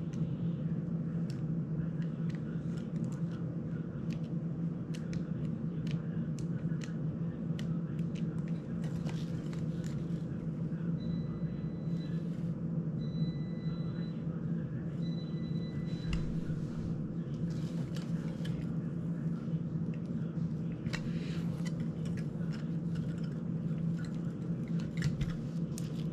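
Small clicks and taps of a screwdriver and plastic drone frame parts being handled during a repair, over a steady low hum. Roughly halfway through come three short, high electronic beeps.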